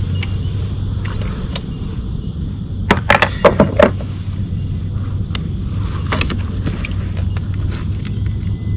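Clacks and knocks of a landing net and a just-caught bream being handled in a plastic kayak, a tight cluster of sharp clacks about three seconds in and a few more around six seconds, over a steady low rumble.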